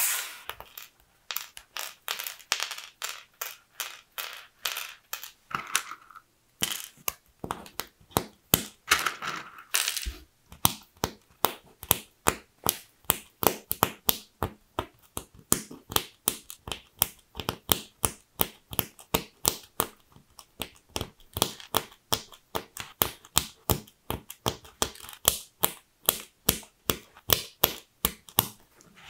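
Small black plastic LEGO chain links being snapped together one at a time into a chain: a long run of sharp clicks, about three a second.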